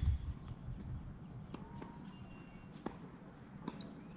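Tennis balls being struck and bouncing on a hard court: a few sharp pops spaced about a second apart, after a low thump right at the start.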